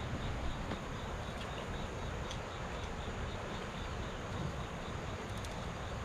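An insect chirping in a steady, even rhythm of short high pulses, several a second, over a steady low rumble.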